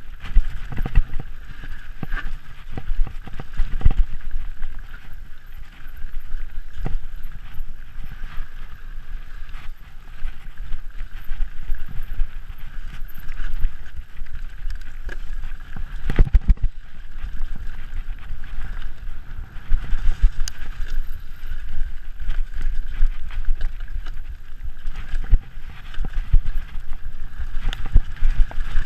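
Mountain bike descending a rough dirt singletrack at race pace: tyres rumbling over the ground, with frequent knocks and rattles from the bike over bumps and one heavy knock about halfway through.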